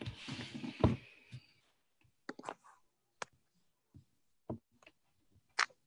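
Rustling with a sharp knock in the first second or so, then a handful of separate short clicks and taps.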